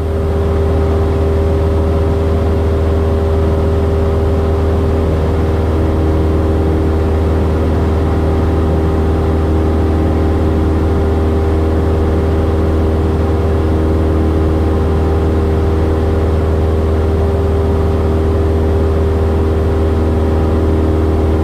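Cessna 172S's four-cylinder Lycoming engine and propeller droning steadily in flight, heard inside the cockpit, with a loud low hum and a steady higher tone over it.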